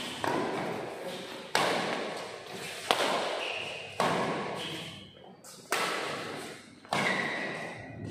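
Badminton rally: rackets striking the shuttlecock five times, roughly one to one and a half seconds apart, each sharp hit ringing out and fading in a reverberant hall.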